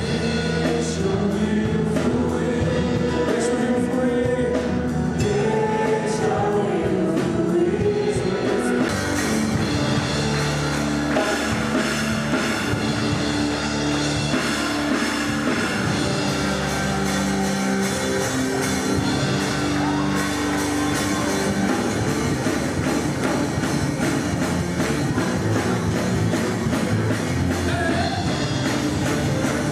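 Music: a sung song with a rock band backing. The drums and the fuller band come in about nine seconds in.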